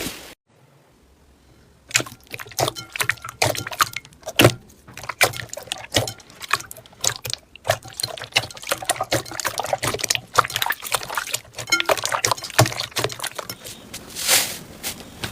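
Slime being squished and kneaded by hand: a fast, irregular run of wet clicks and pops, starting after a pause of near silence, with a few louder squelches near the end.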